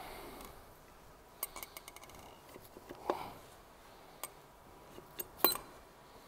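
Metal clicks and clinks from a crankshaft main bearing cap and its bearing shell being worked loose by hand on a Kia Spectra 1.6 S6D engine block. There is a quick run of light clicks about one and a half seconds in, a knock about three seconds in, and a sharp clink near the end, which is the loudest.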